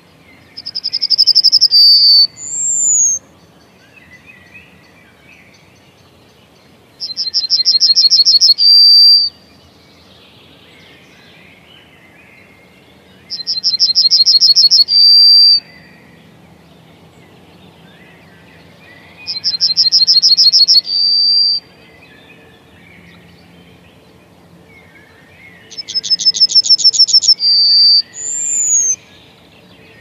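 Yellowhammer singing its song five times, about six seconds apart: a fast run of repeated high notes ending in a longer drawn-out note, twice followed by a short falling note. Other birds chirp faintly in the background.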